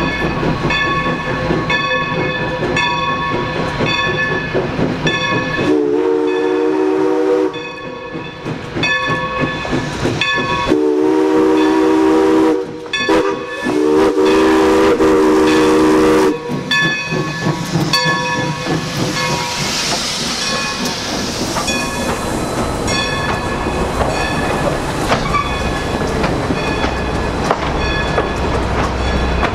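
Steam locomotive #40, a 2-8-0 Consolidation, blowing its chime steam whistle in the grade-crossing signal (long, long, short, long) over the steady ringing of its bell, with the low rumble of the moving train. A burst of steam hiss comes about two-thirds of the way through.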